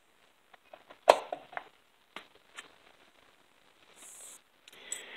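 Metal clicks of a chainsaw clutch drum being fitted onto the clutch and crankshaft: one sharp click about a second in, then several lighter taps, and a brief soft rustle near the end.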